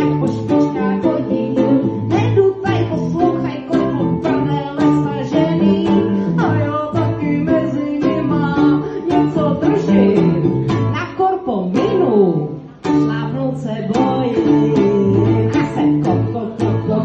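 Live duo performing: a woman singing with a small acoustic string instrument and a man playing electric guitar, a steady plucked rhythm under her voice. Around twelve seconds in the music slides down and breaks off for a moment before picking up again.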